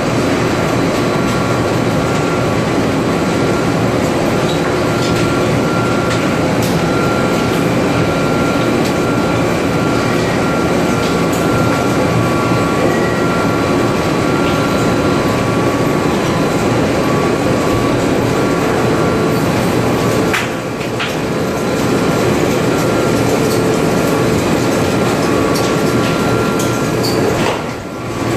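Open two-roll rubber mill running while a sheet of tyre rubber compound is worked on its turning rolls: a loud, steady machine rumble with a few faint steady whining tones. The noise dips briefly twice, about two-thirds of the way through and again near the end.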